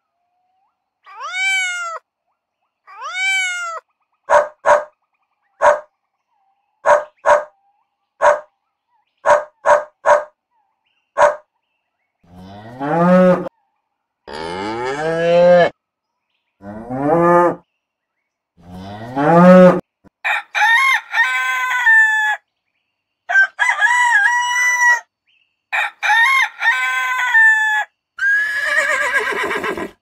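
A kitten meows twice, then comes a run of short, sharp bird calls, mostly in pairs. A cow moos four times, followed by three long, wavering calls typical of a rooster crowing, and a horse starts to whinny near the end.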